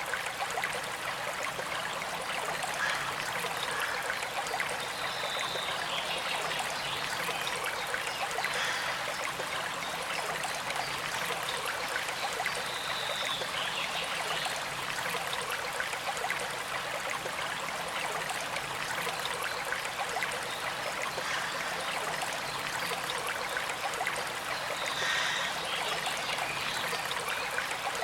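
Stream running: a steady, even rush and trickle of water, with a few brief faint higher notes now and then.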